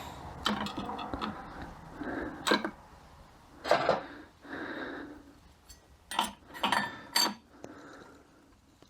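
Steel transmission parts clinking and clattering as they are handled and fitted, in a string of sharp metallic clicks and knocks, with a person breathing and sniffing through the nose between them.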